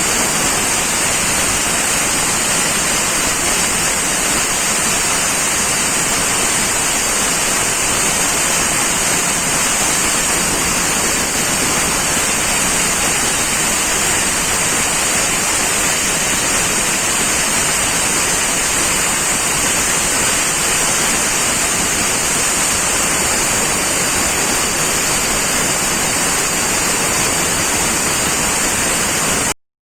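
SD-01 band resaw machine running with its conveyor feed: a steady, loud mechanical noise with a strong high hiss. It cuts off suddenly near the end.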